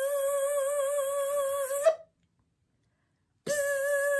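A woman's voice imitating a bee with a long, steady 'bzzz' buzz held on one pitch with a slight wobble, stopping about two seconds in. After a short silence a second buzz starts near the end.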